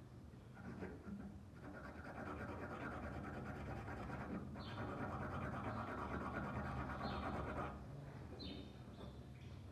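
A small hand brush scrubbing rust off a small steel knife blade held flat on concrete: a steady scratching from about two seconds in that eases off into a few separate strokes near the end.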